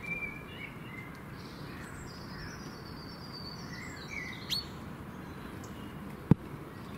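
Outdoor ambience: small birds chirping now and then over a steady low background noise. A single sharp click comes near the end.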